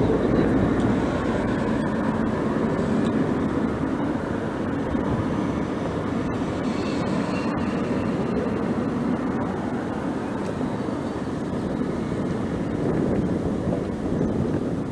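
Steady wind and road noise on the microphone of a moving bicycle, an even rumbling hiss.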